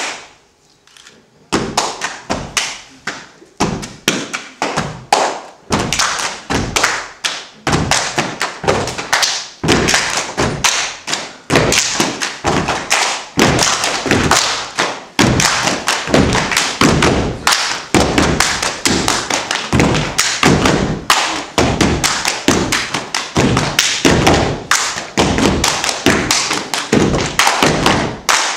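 Step dance body percussion: a group stomping on a wooden stage floor and clapping in unison, in a fast, continuous rhythm of thuds and sharp claps that begins about a second and a half in after a short pause.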